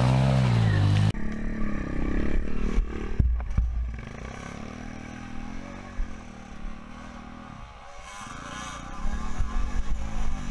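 Dirt bike engine revving in rising and falling swells as it climbs a steep woodland trail. About a second in the sound cuts abruptly to a quieter engine note, heard from the rider's helmet camera, with a couple of knocks about three seconds in.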